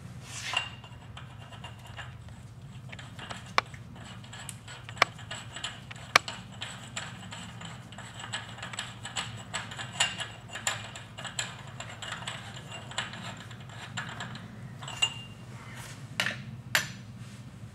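Sharp metallic clicks and clinks, with a run of fairly regular ticks in the middle, as the inner spindle nut is threaded onto a Dana 30 front axle spindle by hand.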